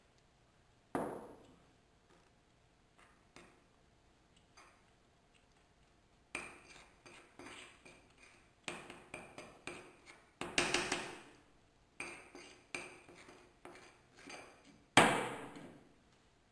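Metal teaspoon clinking and scraping against a small ceramic saucer while stirring cement powder and water into a stiff paste. A ringing clink comes about a second in, then a run of quick scrapes and taps, ending in the loudest ringing clink near the end.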